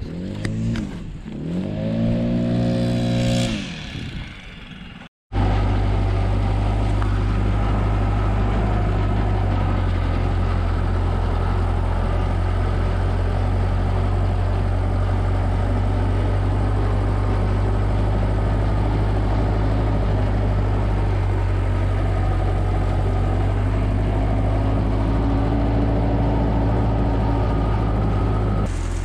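A few seconds of a pitch-sliding sound end in an abrupt cut. Then a tractor engine runs steadily, heard from inside the cab, while the tractor pulls through hay with a front-mounted belt rake.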